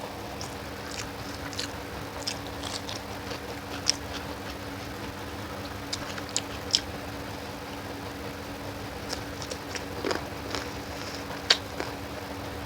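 Close-up eating sounds of chicken leg curry: biting and chewing, with scattered sharp wet clicks and smacks. A steady low hum runs underneath.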